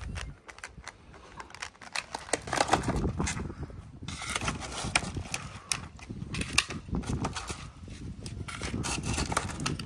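Several cats eating wet food and dry kibble from plastic trays: an irregular run of small crunches and clicks that starts about two seconds in and keeps up.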